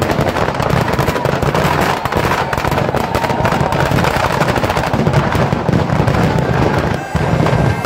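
Firecrackers packed inside a burning Ravan effigy going off in a dense, rapid, unbroken run of bangs and crackles.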